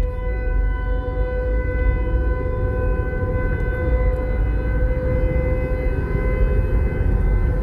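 Federal Signal 508 outdoor warning siren sounding the full-alert signal: one steady, unbroken tone held at a single pitch. A low rumble runs underneath.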